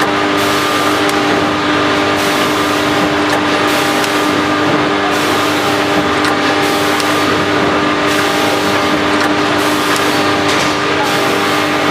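Automatic food packaging machine with multihead weigher running: a loud, steady mechanical hum with a few constant tones, and a high hiss that cuts in and out every second or two.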